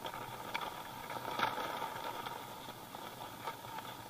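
Skis sliding over groomed snow: a steady hiss with a few sharper scrapes, the loudest about a second and a half in.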